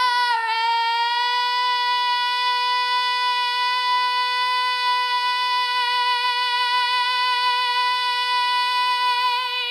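A girl's solo singing voice holding one long high note at a steady pitch, with a slight waver just after the start and vibrato coming in near the end: the final sustained note of the song.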